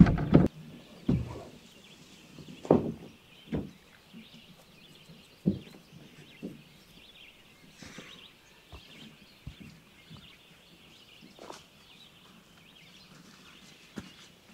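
Wooden canoe knocking and scraping against rock and ground as it is hauled up onto shore, with several sharp thumps in the first few seconds. After that come fainter scattered ticks and steps over a faint steady high hiss.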